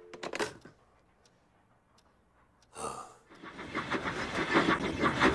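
A telephone dial tone cuts off with a short clatter, like a receiver being put down. About two seconds of near silence follow, then a brief sigh, and electronic music fades in and builds toward the end.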